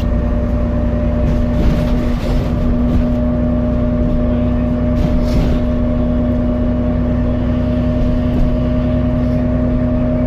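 Alexander Dennis Enviro400MMC double-decker bus idling with a steady low rumble and an odd steady hum or whine held on two pitches. A few short hisses come through about two and five seconds in.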